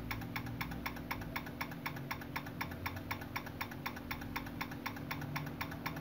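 Relays on a GE microwave oven's control board chattering: a rapid, even clicking of about seven clicks a second over a steady low hum. The relays are switching on and off when they should hold, a fault the repairer traces to one of the board's relays.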